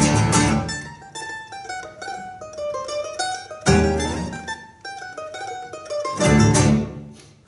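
Live acoustic trio of mandolin, classical guitar and plucked double bass. A mandolin plays a solo run of single notes, broken by two full-ensemble chords with bass, about halfway and a little after six seconds, and the music stops short for a moment at the very end.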